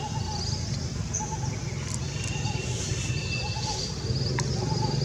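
Birds chirping outdoors: short warbling calls repeating every second or so, with fainter high chirps, over a steady low hum and a few sharp clicks.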